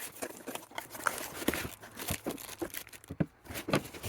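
A power tool's packaging being opened and handled: irregular tearing and crinkling with light knocks and clicks.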